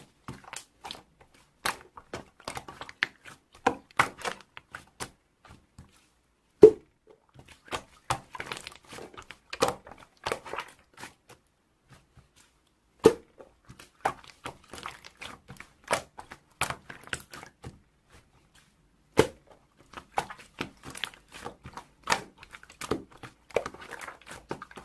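Slime being squished and poked by hand: irregular sticky clicks and crackles, with a few louder, deeper pops several seconds apart.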